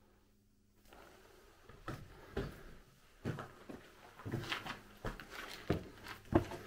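Footsteps on loose stone rubble and grit in a small stone chamber, an irregular step about every half second starting about two seconds in.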